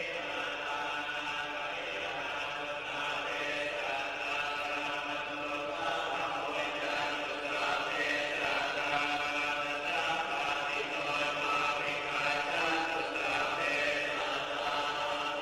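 Buddhist monks chanting together in a steady, sustained drone of voices.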